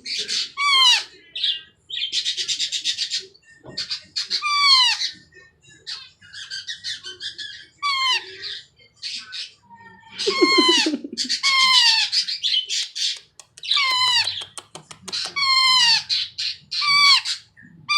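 Baby Indian ringneck parakeet crying: a rapid string of loud squawks that fall in pitch, with raspy buzzing calls between them. According to its owner the crying is not from hunger or pain.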